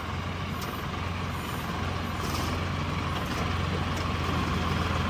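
Farm tractor's diesel engine running steadily, heard from the driver's seat, slowly getting a little louder.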